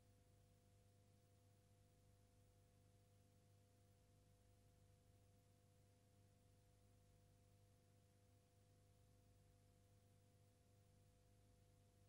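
Near silence, with a faint steady hum.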